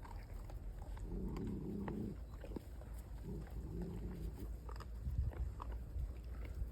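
An animal being fed makes two low, drawn-out calls of about a second each, about a second and three seconds in, among small clicks and ticks.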